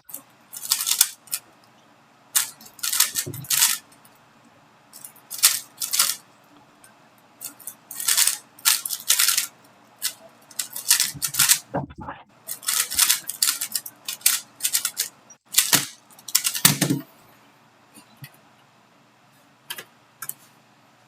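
A 3x3 Rubik's cube being turned by hand: spurts of quick plastic clicking and clacking with short pauses between, growing sparse after about seventeen seconds in.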